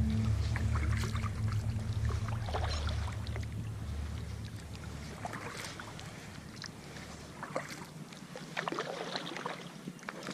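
Kayak paddle dipping into lake water, with splashes, trickles and drips coming at uneven intervals. A low background music bed fades out over the first several seconds.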